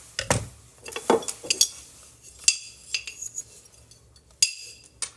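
Kitchen utensils knocking and clinking: scattered soft taps and knocks, with two ringing metal clinks, one about halfway through and one near the end.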